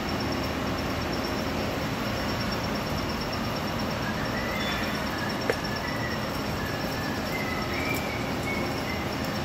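CNC vertical lathe running its live-tool spindle to power-tap a threaded hole in a steel ring, giving a steady machine noise. Faint short squeaks come in from about the middle, and a single sharp click sounds about halfway through.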